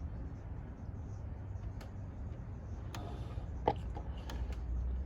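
Toyota Highlander engine idling with a steady low hum, with a few light clicks over it.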